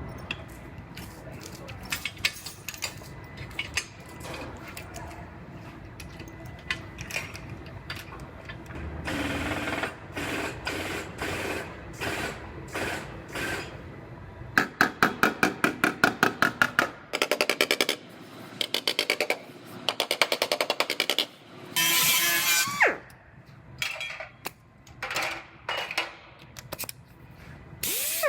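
Sheet-metal body work on a pickup's crushed cab corner: scattered clicks, then runs of rapid tool knocks and taps on the panel from about nine seconds in as the dent is pulled and worked back into shape.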